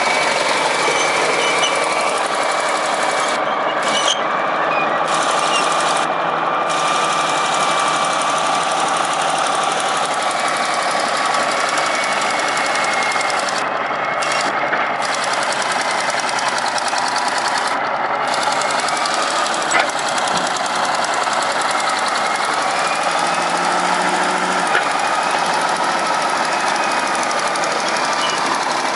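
Construction machinery engines running steadily, a continuous rattling mechanical noise with a faint whine, broken by two short sharp clicks, one about two-thirds of the way through and one near the end.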